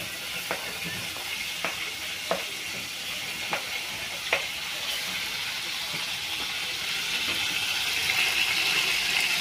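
Chopped linguiça sausage frying in a pan: a steady sizzle that grows louder over the second half. A few light clicks, like a utensil tapping the pan, come in the first half.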